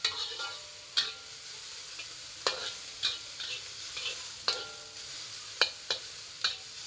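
Sliced onions sizzling in oil in a wok as a metal spatula stirs them, scraping and knocking against the wok at irregular intervals, about once a second. The wok rings briefly after the sharper strikes.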